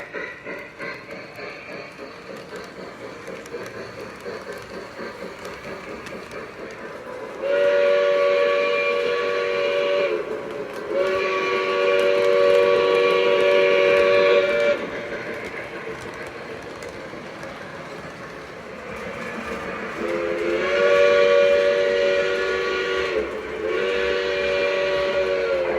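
Lionel O-gauge model locomotive's electronic sound system sounding a multi-note chord horn in two long blasts, then two more long blasts several seconds later, over the quieter running sound of the train.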